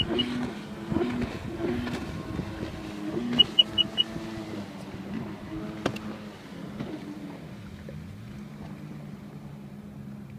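Watercraft engine running out on the water, its drone stepping and wandering in pitch and easing off in the second half. Two sets of four quick high beeps cut through it, one at the very start and one about three and a half seconds in.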